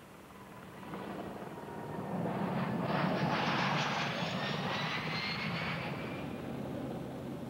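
Airbus A320 jet airliner running at high power as it rolls fast along the runway: engine noise swells to a loud peak about three seconds in and then eases off, with a thin whine that climbs gently in pitch.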